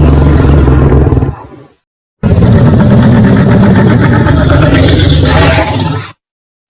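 Wolf growling sound effects: a low, rough growl trails off about a second and a half in, and after a short silence a longer growl lasts about four seconds.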